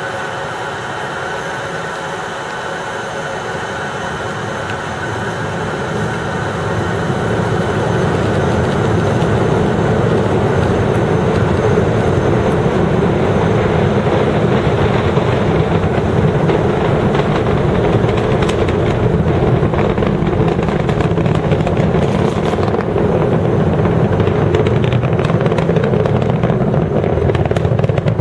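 Space Shuttle launch roar from the solid rocket boosters and main engines: a continuous deep, rough rumble that grows louder over the first ten seconds and then holds steady.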